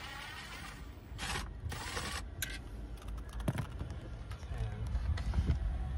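Irregular clicks and small knocks of a socket wrench being worked onto and turning a 10 mm bolt behind the dashboard, over a low rumble that grows toward the end.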